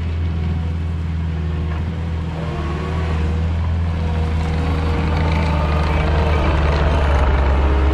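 Skid steer loader's diesel engine running steadily under throttle, with a faint wavering whine above the engine note; it grows slightly louder toward the end.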